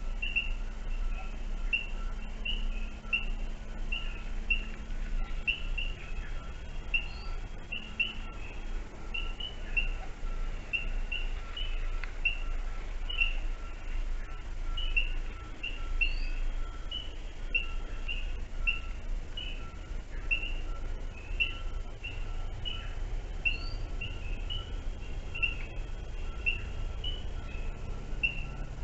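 Bird chirping over and over, about two short chirps a second, with now and then a higher rising note. Under it runs a faint steady insect drone and a low rumble of background noise.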